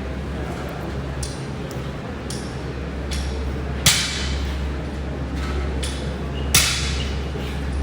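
Two sharp knocks about three seconds apart, typical of gym equipment being put down during a workout, with several short hissing sounds between them over a steady low hum.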